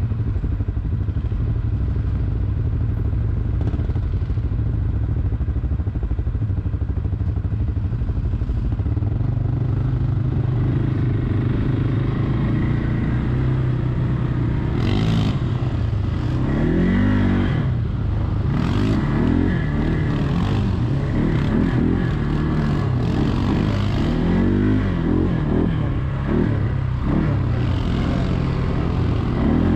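Quad bike (ATV) engine running under way on a rough dirt trail. The engine is steady at first, then revs up and down with the throttle over the second half. A few short clattering knocks come around the middle.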